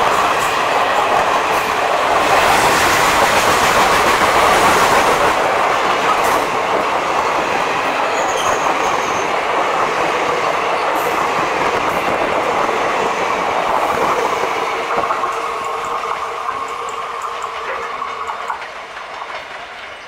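Indian Railways passenger coaches rushing past close by, a steady roar of wheels on rail with a clickety-clack beat over the rail joints. It fades over the last few seconds as the end of the train pulls away.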